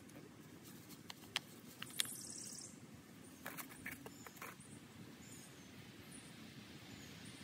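A few sharp clicks and taps, with a cluster of them about halfway through, from gloved hands handling small black plastic nursery pots and soil while lifting out a seedling, over quiet outdoor ambience with faint high bird chirps.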